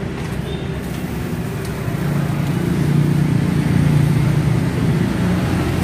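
Road traffic noise with a motor vehicle's low engine hum, which grows louder from about two seconds in.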